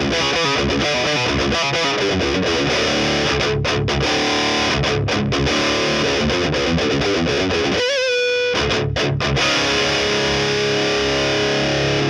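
Distorted electric guitar riff: a Les Paul Tribute's 490T bridge pickup driven by a Horizon Devices Precision Drive into a PRS MT15 amp, heard through a 2x12 cabinet with 25-watt Celestion Greenback speakers, miked with an SM57. About eight seconds in a single note wavers with vibrato and the playing stops for half a second, then the riff picks up again.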